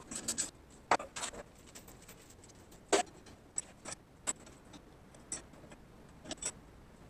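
Scattered sharp clicks and knocks, about a dozen at uneven intervals, the loudest about three seconds in.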